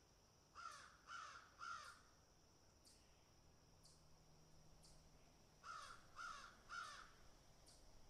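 Crows cawing in two runs of three harsh caws each, one about half a second in and another near six seconds, with faint short high ticks in between.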